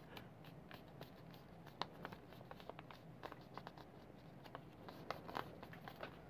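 A sheet of A4 paper being handled and folded, faint rustling broken by short crisp crackles as it is creased, a few sharper ones about two seconds and five seconds in.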